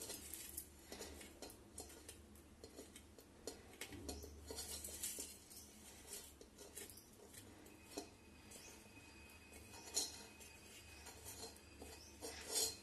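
Whole coriander seeds pushed by hand off a steel plate, pattering faintly into a stainless steel bowl with scattered small clicks. There are a couple of louder clicks about ten seconds in and near the end.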